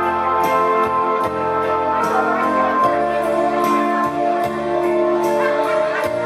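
Live band music with no singing: an electronic keyboard playing held chords and a melody over bass notes and a steady light beat.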